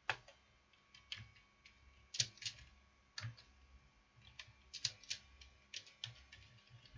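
Typing on a computer keyboard: uneven key clicks, about two or three a second.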